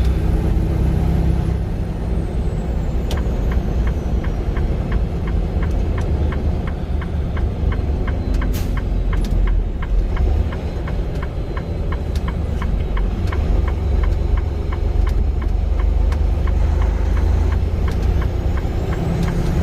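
Semi truck's engine and road noise heard from inside the cab while driving on wet road, a steady low rumble. A quick, regular ticking, about three a second, runs through most of the middle stretch.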